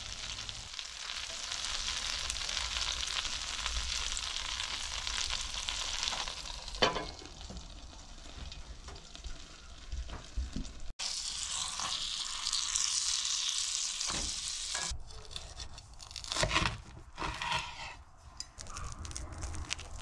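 Grilled cheese sandwich frying in butter in a pan, a steady sizzle with a sharp knock about seven seconds in. The sound breaks off abruptly about eleven seconds in and the sizzling starts again, followed by a run of knocks and scrapes over the last few seconds.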